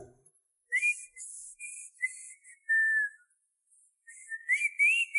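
Whistled tune: a string of clear, short held notes with small glides between them, in two phrases with a brief pause about three seconds in.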